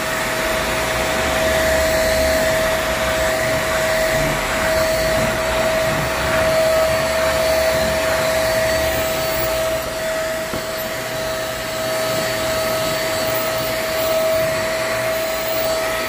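Philco stick vacuum cleaner running steadily with a constant high whine, its motor working again now that the faulty on/off switch has been replaced.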